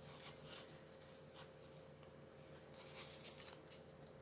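Faint rustling and light scratchy brushes of Pokémon trading cards and pack wrapper being handled, a few short brushes near the start and a cluster of them around three seconds in.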